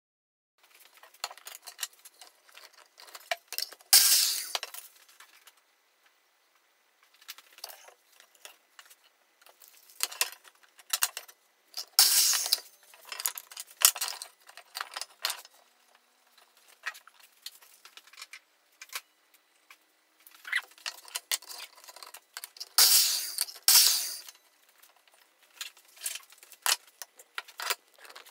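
Rapid, jittery clattering and clinking of wooden pieces and tools being handled on a workbench, the sound of the fast-motion footage. There are louder bursts about four seconds in, around twelve seconds in, and a double one near the end.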